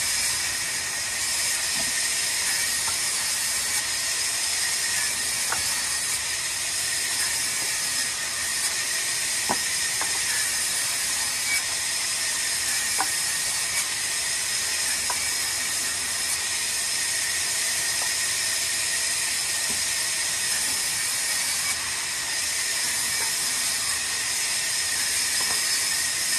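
Large vertical band saw ripping a yew plank fed by hand along its table: a steady high hiss of the blade cutting through the wood, with a few faint ticks.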